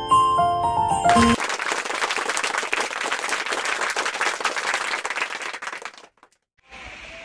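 A short xylophone-like tune ends about a second in. Crowd applause follows for about five seconds, fading slightly before it cuts off.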